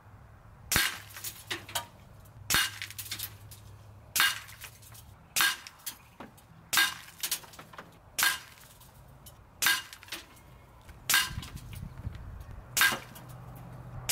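FX Crown PCP air rifle firing 25-grain JSB pellets in a rapid string, about ten shots roughly one and a half seconds apart. Each is a sharp crack followed by a few lighter clicks.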